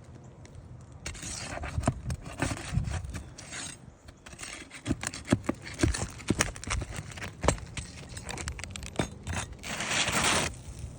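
Scraping and rubbing of a tool against roof shingles, broken by many sharp clicks and knocks, with a longer scrape near the end.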